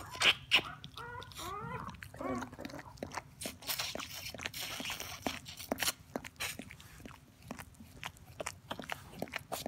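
Border collie licking her newborn puppy clean: a run of wet licking and smacking clicks, with a few short, high squeaky cries from the puppy between about one and two and a half seconds in. A stretch of breathy noise comes near the middle.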